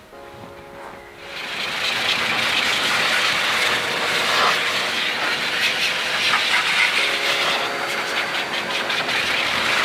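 Car-drying air blower blasting air through a flexible hose into a car's front grille, a steady loud hiss that starts about a second in.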